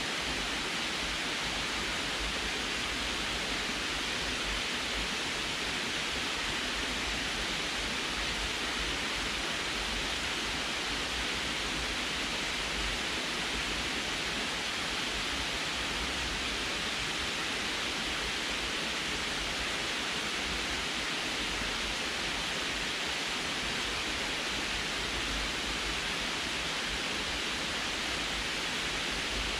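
Water pouring over the curved concrete spillway of a small canal dam and splashing into the pool below: a steady, unchanging rush.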